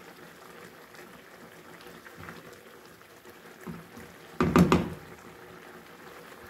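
Minced meat and tomato mixture bubbling in a non-stick frying pan, with a spatula stirring through it. About four and a half seconds in there is a short loud knock, with a couple of fainter knocks before it.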